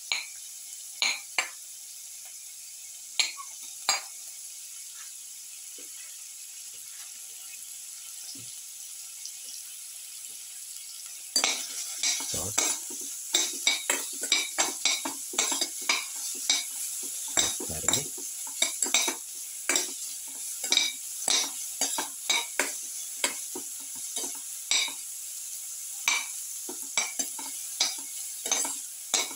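Sliced onions sizzling in hot ghee in a pan, with a few clinks in the first seconds. About eleven seconds in, the sizzle grows louder and a spatula starts stirring, scraping and clinking against the pan many times.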